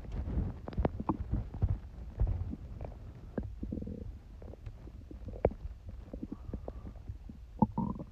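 Human stomach gurgling: a run of small pops and gurgles over a low rumble, with a couple of brief squeaky gurgles near the end.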